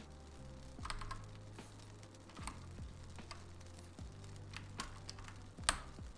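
Keys being pressed one at a time on an 80% mechanical keyboard: scattered, unhurried keystrokes, each a sharp click with a deep thock, the loudest one about five and a half seconds in.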